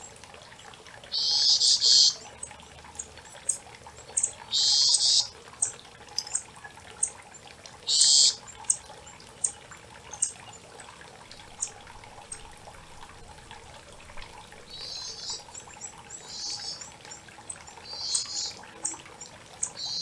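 Songbirds singing over the steady trickle and rush of a creek. Three loud, high bursts of song, each about a second long and a few seconds apart, come in the first half, with short sharp chirps between them. Softer calls follow near the end.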